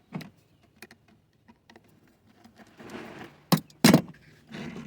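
Scattered light clicks, then handling noise and two sharp knocks about three and a half seconds in: hand tools and hands working loose the hose clamp and intake duct of a car's stock air intake.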